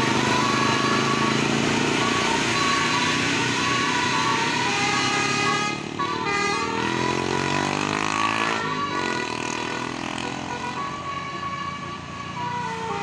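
Multi-tone musical bus horn of the 'Basuri' telolet type playing a tune in held notes over engine noise. About six seconds in, a car passes close by.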